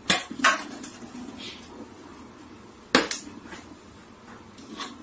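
A few sharp clinks and knocks of hard objects striking each other: two near the start and a loud one about three seconds in, with fainter clicks between.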